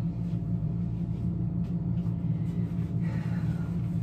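Steady low hum of a ceiling ventilation fan, running evenly without a break.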